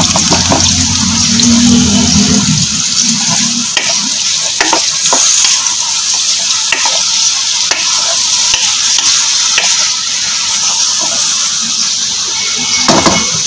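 Freshly sliced onions sizzling in hot cooking oil in a steel karahi, at the start of frying. A wooden spoon stirs them, scraping and knocking against the pan every second or so.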